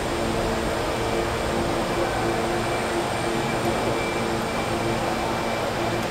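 Steady mechanical hum and rushing noise of an airport cargo area's machinery, with a low droning tone that wavers in and out.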